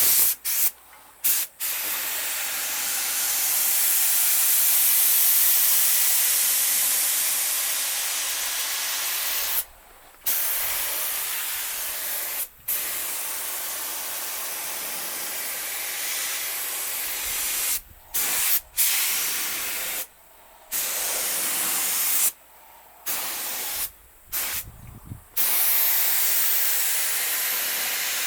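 Old-style air spray gun hissing as it sprays primer, in long passes cut by short trigger releases; the gaps come more often in the last third.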